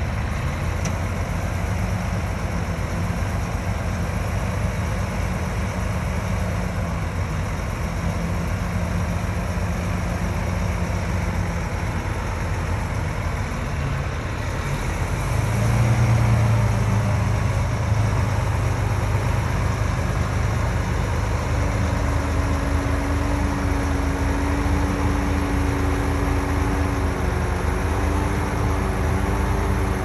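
Heavy diesel engines of earthmoving machinery, a bulldozer and dump truck, running steadily. About halfway through the engine note rises and grows louder, and from about two-thirds of the way a steady, higher whine joins it.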